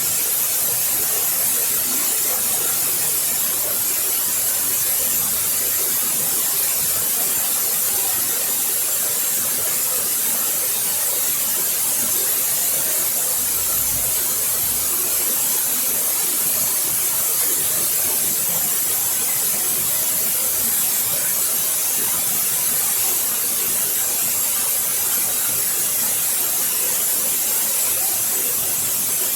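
Waterfall: water falling and splashing in a steady, unbroken hiss.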